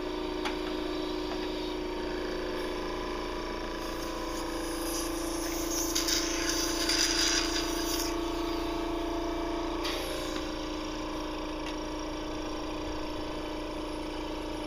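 A cough assist machine (mechanical insufflation-exsufflation device) running with a steady motor hum. Midway, air rushes through the hose and mask for a few seconds as it pushes and pulls air through the airways.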